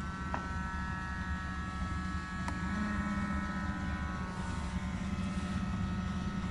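Small DC electric motors of a model drilling rig running: a steady low hum with a thin, steady high whine, and a couple of sharp clicks.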